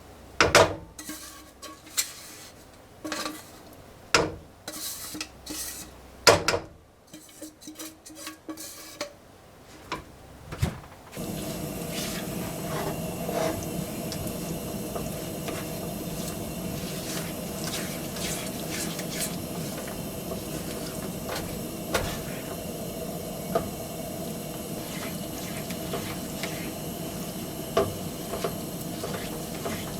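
Dishes and utensils clinking and knocking for about ten seconds. Then a steady hiss starts from the stove, with the occasional light tick, as the plum jam cooks.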